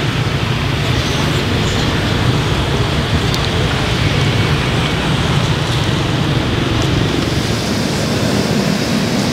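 Steady street traffic noise: a constant low rumble under an even hiss.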